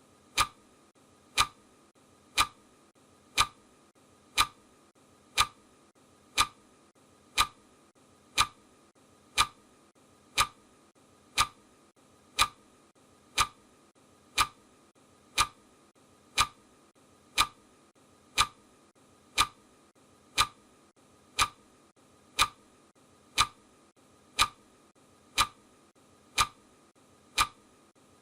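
Clock-tick sound effect of a countdown timer, one sharp tick every second, steady and even.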